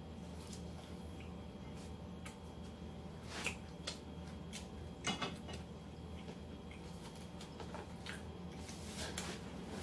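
A person eating at a table: scattered small clicks and clatters of handling food and tableware, the loudest about three and a half and five seconds in, over a steady low hum.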